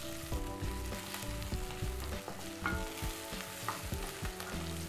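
Onion, garlic, urad dal and cumin sizzling in oil in a stainless steel pan, stirred with a wooden spoon that knocks and scrapes against the pan now and then. This is the medium-heat sauté that browns the lentils.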